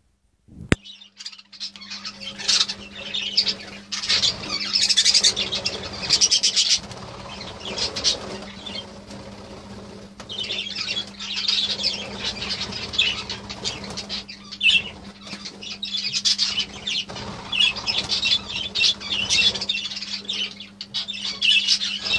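A flock of budgerigars chattering and chirping, a busy run of warbles and squawks that comes and goes in waves, over a steady low hum. The sound drops out briefly at the start.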